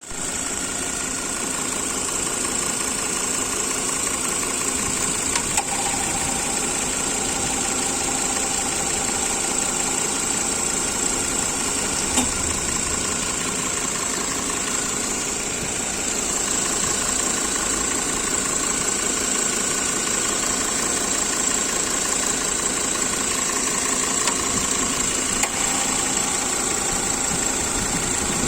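First-generation Ford Kuga's engine idling steadily, with an extraneous knock in it, and a few sharp clicks standing out now and then.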